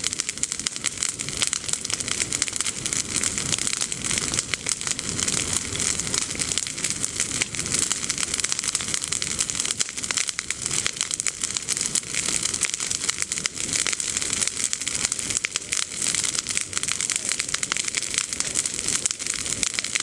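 Bonfire of freshly pruned green olive branches crackling and popping steadily with a dense, irregular stream of snaps.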